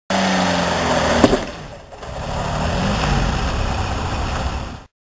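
Car engine running low and steady, with a sharp knock about a second in, then the engine speed rising and falling as the car pulls forward.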